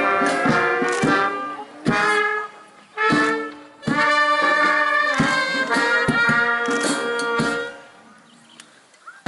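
Brass band playing a tune in short phrases, punctuated by drum beats; the music stops a little before the end.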